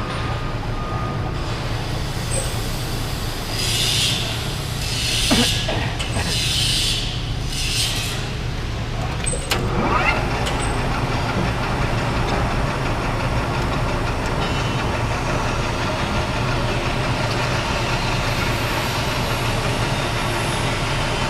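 Metal lathe running with its cutting tool taking a facing pass across the end of a pipe: a steady motor hum under cutting noise. Four short hissy bursts come in the first half, and about ten seconds in a rising whine is followed by louder, steady cutting noise.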